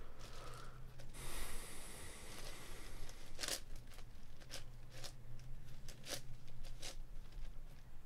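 A plastic 10x10 speed cube, a Meilong 10, being turned: a scraping slide of a layer about a second in, then a run of sharp plastic clicks as slices are turned in and out. A faint low hum lies underneath.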